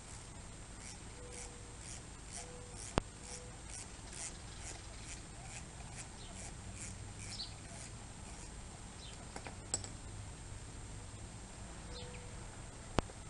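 Faint, regular light clicking of a ratchet wrench, about three clicks a second, as the bolts are backed out of an oil-less air compressor pump's cylinder head, then stopping. A few sharp metal ticks follow, and there are faint bird chirps.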